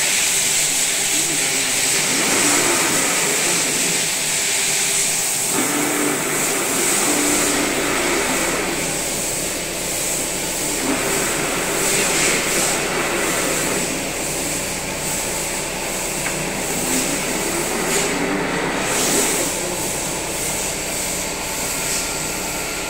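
Freshly overhauled 16K20 lathe running, its headstock gearbox and spindle giving a steady mechanical whine and hiss. The sound changes character about five and eleven seconds in, as the speed levers are worked.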